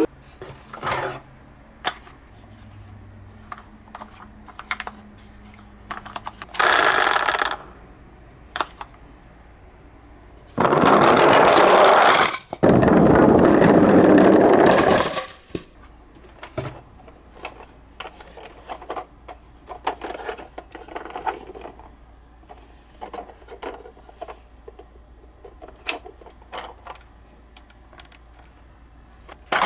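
Small toy minicars being handled: scattered light plastic clicks, taps and scrapes. Two louder stretches of rattling noise stand out, a short one about seven seconds in and one of about five seconds from about ten seconds in.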